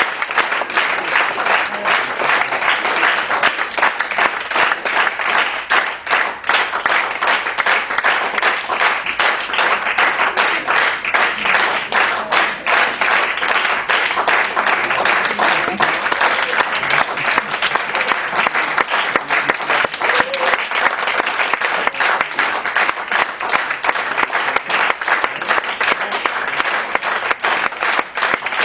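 Theatre audience applauding at a curtain call: dense, steady clapping that keeps on without a break.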